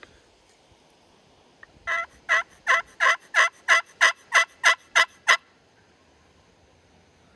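Turkey pot call worked with a wooden-handled striker, giving a run of about eleven sharp yelps that come slightly quicker toward the end. It imitates a hen turkey calling to toms.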